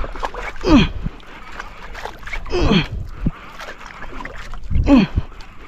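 Small wooden outrigger boat creaking as it rocks on the swell, with a short falling-pitch creak about every two seconds. Water laps and splashes against the hull throughout.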